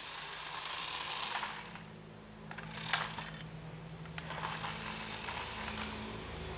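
A vehicle driving on ice: a steady low motor hum under a hiss that rises and falls, with a sharp clatter about three seconds in.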